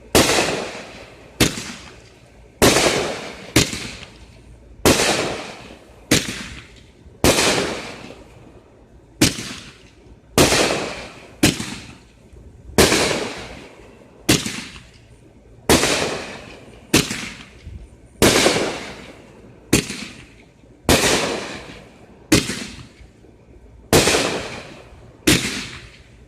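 Skysong Atomic Cannon firework cake firing shot after shot: loud booms about once a second, each trailing away before the next, with a few coming close together in pairs.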